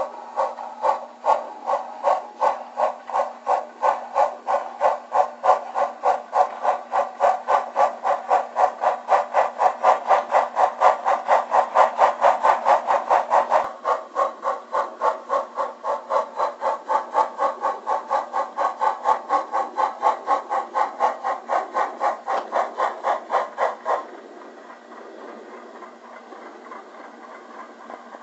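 On30 model steam locomotive's sound system playing a steady rhythmic exhaust chuff, about two to three chuffs a second, through a small speaker. The chuffing changes in tone about fourteen seconds in and stops about twenty-four seconds in, leaving a faint steady hiss.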